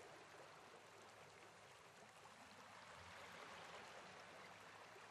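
Near silence: a faint, even rushing hiss.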